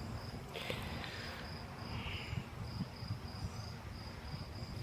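An insect chirping in a steady, high-pitched pulse, about three chirps a second. Two brief rustles come about one and two seconds in, over a low rumble.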